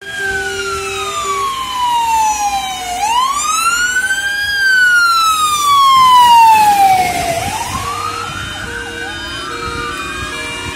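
Fire engine siren wailing in slow rises and falls, swelling loudest as the truck passes about six seconds in. A second siren joins near the end.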